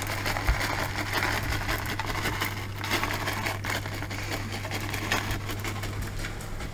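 M&M's candies shaken from a plastic bag and scattering onto a pizza base, many small clicks with some bag crinkling, over a steady low hum.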